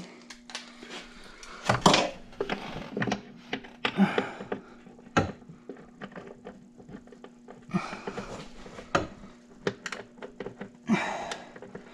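Socket wrench clicking as a 13 mm bolt is run in and snugged down on the engine, with scattered clinks and knocks of metal tools against a faint steady hum.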